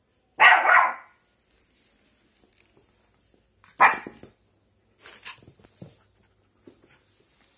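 Shih tzu puppy barking: a short double bark about half a second in and a single sharp bark near four seconds, followed by faint small knocks and rustles.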